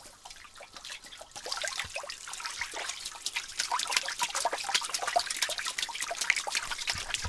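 Pop Rocks popping candy crackling: a dense, rapid patter of tiny pops that thickens about a second and a half in.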